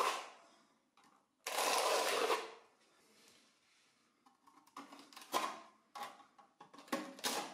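Two long rasping strokes of a hand tool over a freshly filled wall surface, each lasting about a second, followed by a scatter of short scrapes and knocks.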